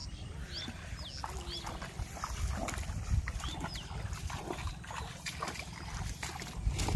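Legs wading through knee-deep water in a flooded paddy field, sloshing and splashing with each step, with the heaviest splashes near the end as the wader steps out onto the bank. A few short high chirps sound over it.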